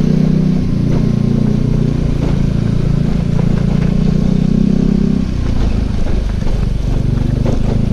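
Motorcycle engine running steadily; about five seconds in its note changes as the higher part of the sound drops away, leaving a lower hum.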